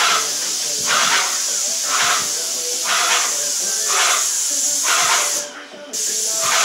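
Hose-fed spray gun hissing steadily, with a rhythmic pulse about once a second. The spray stops briefly about five and a half seconds in, then starts again.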